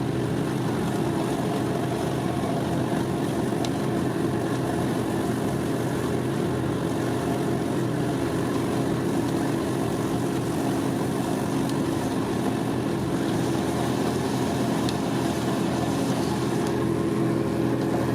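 Boat engine running steadily: an even, unbroken low drone.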